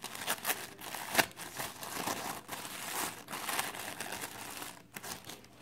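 White paper wrapping crinkling and tearing as it is pulled open by hand around a knife, a busy run of crackles and sharp snaps that thins out near the end.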